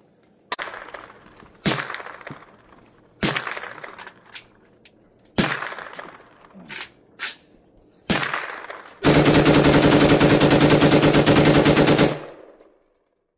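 Zastava M70 AK-pattern rifle with a Texas Triggers Diablo forced-reset trigger firing: about eight single shots roughly a second apart, each with a short echo. Then comes a rapid string of fire lasting about three seconds that ends abruptly, the forced-reset trigger letting it run near full-auto speed.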